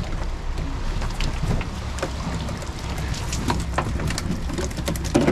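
Cast net full of herring being hauled up out of the water and over a boat, water dripping and splashing off the mesh in scattered short splats over a steady low rumble.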